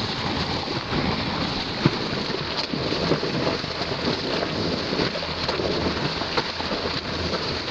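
Water rushing and churning past a camera held underwater beside a moving boat, a steady noisy wash with a few faint ticks.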